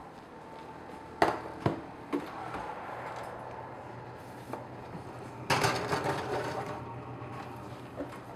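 Metal loaf pans set down and slid across a wire oven rack, a clattering rattle about halfway through that is the loudest sound. It follows a few sharp clicks and clunks near the start as the wall oven door is opened, with a steady hum throughout.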